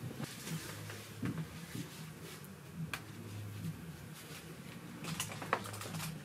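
A few light clicks and taps from a flat iron being handled and clamped on a section of hair, over a low steady hum.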